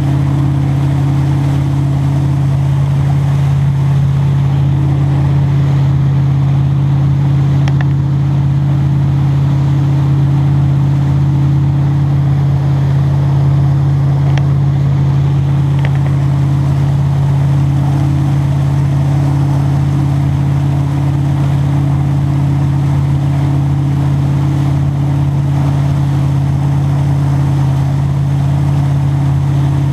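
Motorboat engine running with a steady, unchanging drone at wake-surfing speed, over the rushing wash of the boat's wake.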